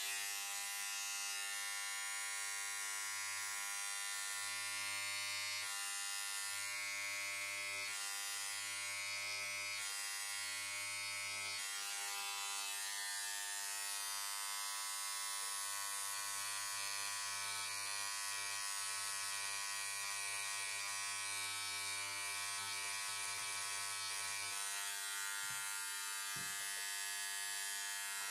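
Pneumatic air scribe buzzing steadily as its needle chips away the shale matrix around a trilobite fossil. It switches on abruptly and runs without a break.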